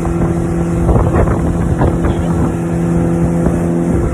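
Motorboat engine running with a steady drone, over a heavy rush of wind and water with a few knocks; the drone drops out near the end.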